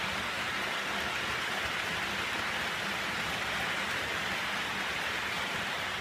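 H0 model trains running on the layout: a steady, even rolling noise of wheels on track and small electric motors, with a faint low hum underneath.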